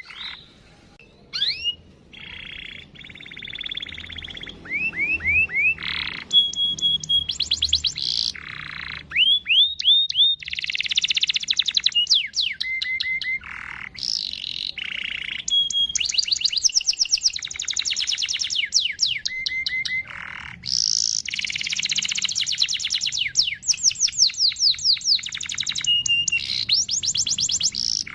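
Domestic canary singing a long rolling song of fast trills, rapidly repeated high notes and buzzy rolls, with hardly a break: the kind of song played as a lure to get other canaries singing.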